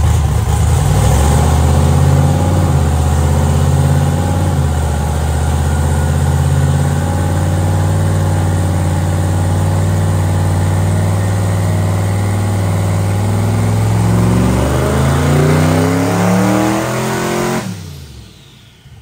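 Twin-turbo LS V8 of a Camaro drag car making a gentle low-boost pull on a chassis dyno. The engine runs hard under load at a fairly steady speed, the revs climb over the last few seconds, and then it drops off sharply near the end as the throttle is closed.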